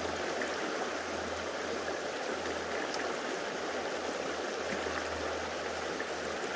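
Shallow river flowing over a cobble bed: a steady, even sound of running water.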